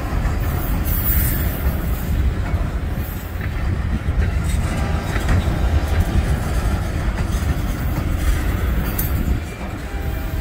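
Covered hopper cars of a freight train rolling past: a steady rumble of steel wheels on the rails, with occasional clicks as the wheels cross rail joints.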